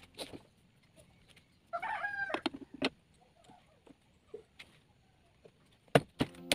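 A chicken calling briefly about two seconds in, among a few scattered sharp clicks and knocks.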